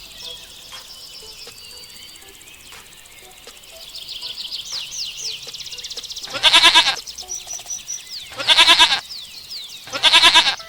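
A goat bleats three times, each call about half a second long and wavering, roughly two seconds apart in the second half. Small birds chirp in the background throughout.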